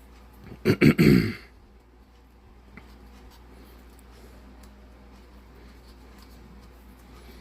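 A person clearing their throat once, about a second in, followed by a low room background with a few faint small ticks.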